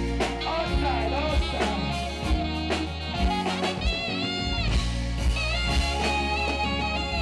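Live reggae band playing: a steady bass line and drum kit beat, with a saxophone playing a melody over it.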